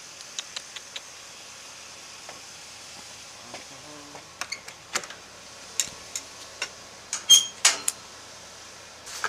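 Irregular clicks, scrapes and crackles close to the microphone over a steady hiss, sparse at first and busier in the second half, with the loudest cluster about seven seconds in.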